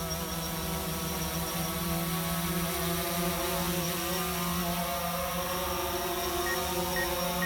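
DJI quadcopter drone's propellers buzzing steadily as it descends to land. Near the end a short high beep starts repeating about twice a second.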